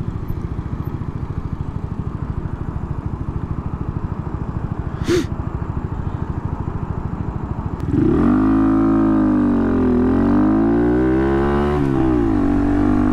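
Honda Monkey's single-cylinder engine running at idle with a rapid, even putter. About eight seconds in the bike pulls away: the engine gets louder and its pitch rises and falls twice before settling into a steady cruise.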